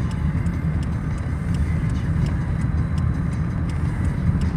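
Car driving along a highway: a steady low rumble of tyre and engine noise with faint scattered ticks.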